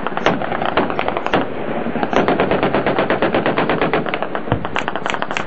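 Sustained automatic gunfire from a firefight: rapid shots in close succession, densest in the middle, with one heavier, deeper shot about four and a half seconds in.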